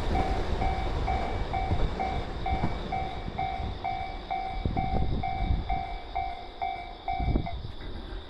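Japanese level-crossing alarm sounding its electronic two-tone "kan-kan", about two and a half strokes a second, stopping near the end. Under it, the rumble of the M250 series Super Rail Cargo freight electric multiple unit fades away with a few wheel knocks.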